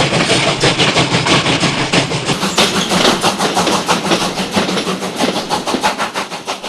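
Steam train running with a fast, even run of rhythmic beats over a continuous rushing noise, fading steadily over the last few seconds.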